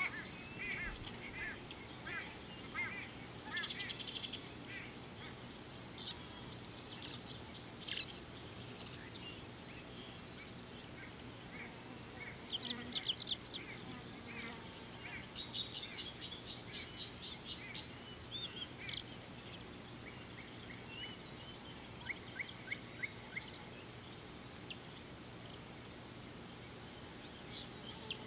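Birds calling at a watering hole: rapid runs of high chattering notes, strongest about four seconds in and again around fifteen to eighteen seconds, with a short series of lower repeated calls at the start and scattered single calls between.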